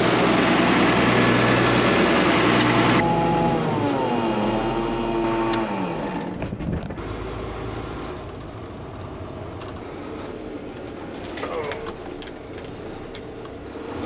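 Farm machinery running loud; its high clatter cuts off suddenly about three seconds in, then the engine winds down with falling pitch and stops about six seconds in: equipment being shut down.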